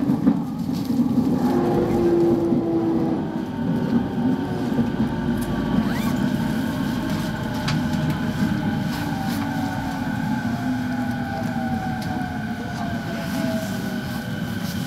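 Running sound inside a JR East 209 series commuter train motor car slowing down: steady wheel-and-rail rumble under an electric motor whine that falls slowly in pitch.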